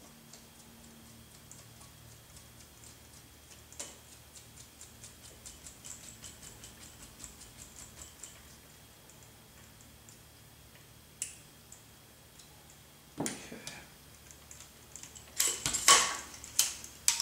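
Light rapid ticking, about five a second, as a hex driver turns the grub screws on a model helicopter's landing skids. Near the end there is louder clatter and a few sharp knocks as the helicopter frame with its skids is handled and set down on the bench.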